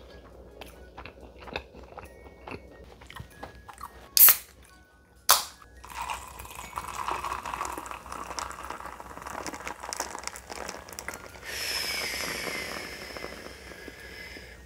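Close-up crunching and chewing of fried chicken, then two sharp clicks a little after four and five seconds. A canned carbonated drink is then poured into a glass, hissing and fizzing as a foamy head builds; the fizz turns brighter over the last few seconds.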